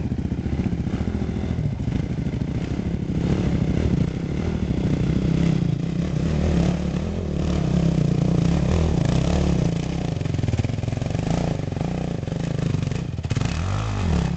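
Dirt bike engines revving up and down under load as the bikes claw up a steep climb in loose dirt.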